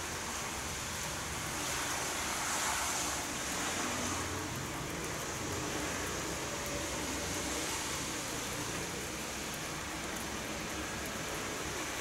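Steady hiss of falling rain, swelling slightly about two to four seconds in.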